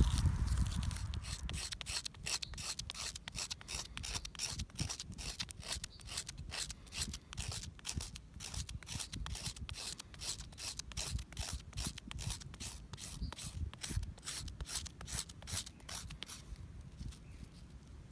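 A knife blade scraping the surface of a strip of birch bark in quick repeated strokes, about three a second, raising fine bark dust as tinder for a firesteel. The strokes stop near the end.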